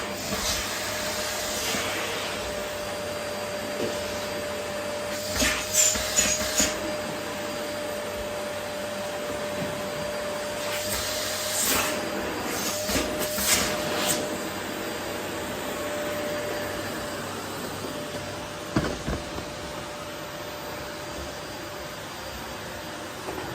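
Vacuum cleaner running steadily on a wooden floor, its motor giving a faint steady whine under the airflow hiss. Louder rushes of suction come in clusters about five to seven seconds in and again about eleven to fourteen seconds in, and there is a single sharp knock near nineteen seconds.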